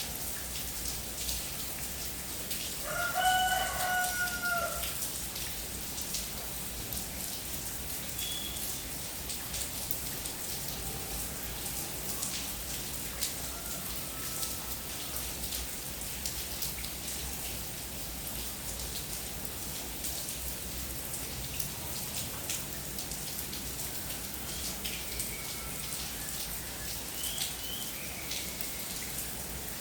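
Steady rain with drops hitting surfaces. A rooster crows once about three seconds in, a call of about two seconds. Faint short bird chirps come now and then later on.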